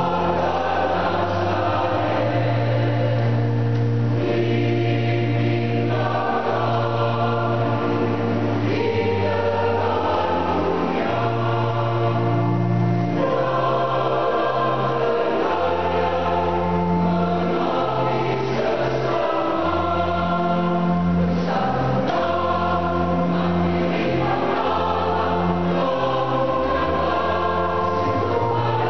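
Mixed choir of men's and women's voices singing in parts, holding long chords that change every second or two.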